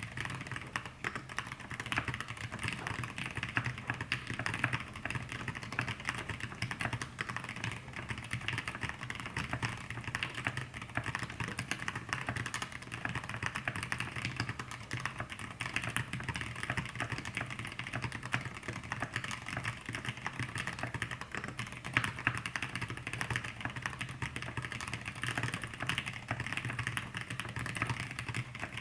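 Fast continuous typing on a mechanical keyboard with lubed Zealios 65g v2 tactile switches, an aluminium plate and thick PBT keycaps: a dense run of keystroke clicks.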